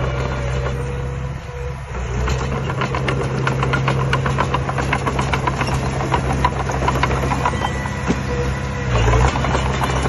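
Diesel engine of a small Komatsu crawler bulldozer running steadily under load while it pushes soil and rubble, with a rapid clatter of steel tracks and blade from about two seconds in.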